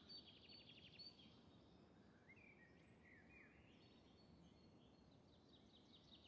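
Near silence with faint outdoor birdsong from songbirds: a rapid trill in the first second, a few short chirps around the middle, and another trill starting near the end.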